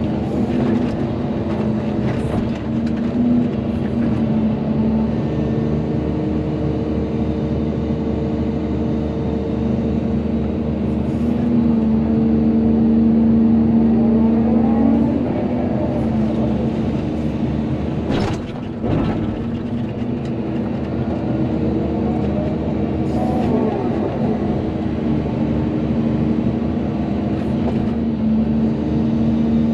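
Volvo EC220DL excavator's diesel engine running steadily under load, its pitch swelling and dipping a few times as the hydraulics work the arm, with a single knock about two-thirds of the way through.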